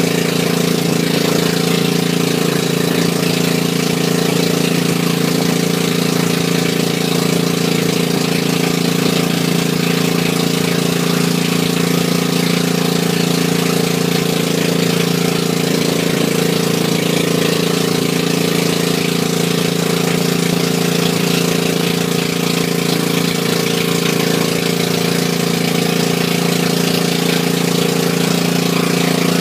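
Engine of an outrigger passenger boat (bangka) running steadily under way, a constant drone that holds one pitch throughout.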